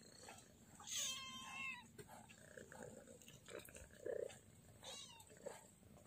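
Kitten meowing: one clear, high-pitched mew about a second in, slightly falling in pitch, and a fainter mew near the end, with soft scuffling of the kittens moving on the bedding.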